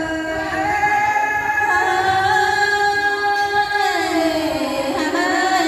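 A woman singing a Tai (Thái) folk song into a microphone over a PA, holding long notes that slide slowly in pitch and dip lower near the end.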